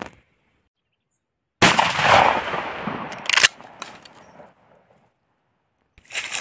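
A single shot from a pump-action shotgun, a Mossberg 590A1, about a second and a half in, with a long echoing tail. About two seconds later comes a sharp clack, the pump being worked to eject the spent shell, and rustling footsteps in grass begin near the end.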